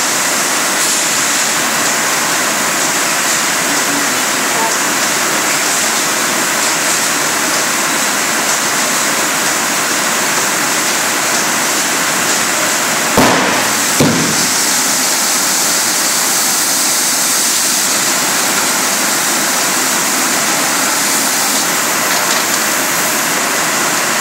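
Rotary PET-bottle filling machine running with a loud, steady hiss and rush. Two sharp bangs, a little under a second apart, come about halfway through.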